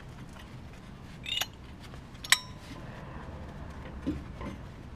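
Metal-on-metal handling of a brake caliper and pad: a short metallic scrape about a second in, then a sharp ringing clink a little after two seconds, and a couple of soft knocks near the end, as the worn outer brake pad is worked out of the caliper.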